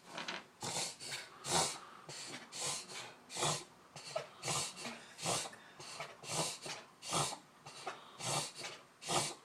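A puggle's labored breathing attack: short, harsh, rasping breaths, about two a second, that do not let up. It is a recurring breathing problem that the owner calls the worst he's ever done it.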